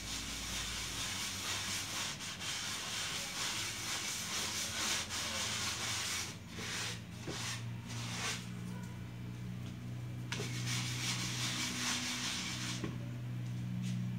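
Cloth rag rubbed back and forth over a wet, salt-covered wooden board: a steady scrubbing, broken into a few separate wipes in the middle, as the excess salt water is wiped off.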